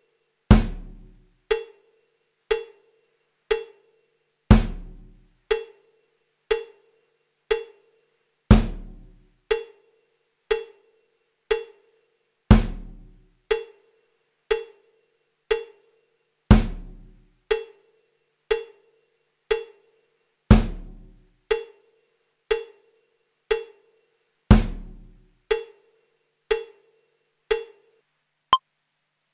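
Slow, sparse percussive music loop: one short ringing tick a second, with a louder, deep drum hit and low boom on every fourth beat that dies away over about a second. Near the end the beat stops, and a couple of thin, high blips follow.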